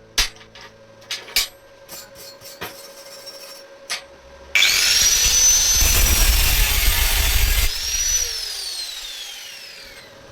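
Angle grinder switched on with a sudden rising whine and running loud for about three seconds, then switched off and winding down with a falling whine. A few clicks and knocks come before it starts.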